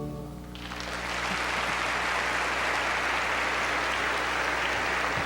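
Theatre audience applauding, swelling in under a second after the orchestra's final chord cuts off and holding steady.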